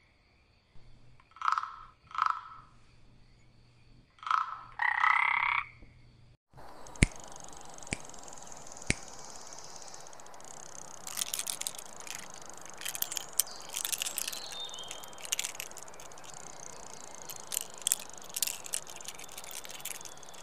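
Frog croaking in the first six seconds: two short croaks, then a longer pair. After that, a steady hiss with three sharp clicks about a second apart, then scattered crackling and ticking.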